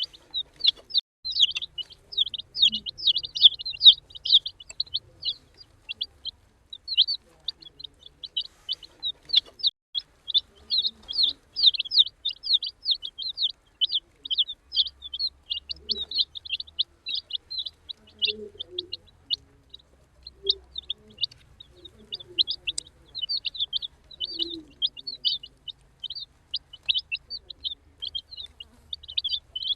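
Many baby chicks peeping continuously in high, rapid chirps, with a few faint low knocks and rustles underneath.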